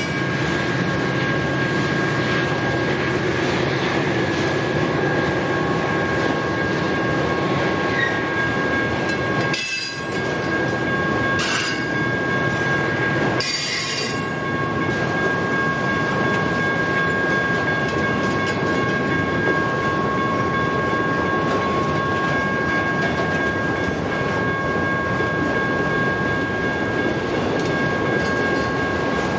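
Freight train of autorack cars rolling past at speed: a steady, loud rumble and clatter of steel wheels on rail, with a continuous high-pitched wheel squeal. A few short hissing bursts come about a third to halfway through.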